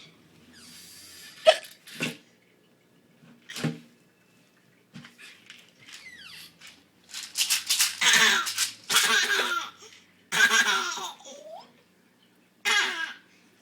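A woman hiccuping, several short, sharp hiccups in the first few seconds, then a young child laughing in long, loud bursts.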